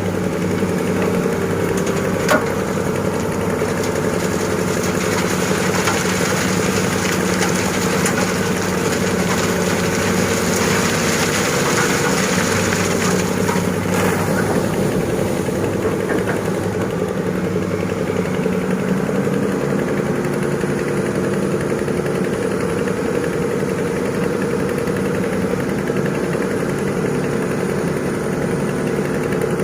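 Diesel engine of heavy earthmoving machinery running steadily, with a sharp click about two seconds in. A rushing noise swells in the middle and stops about fourteen seconds in.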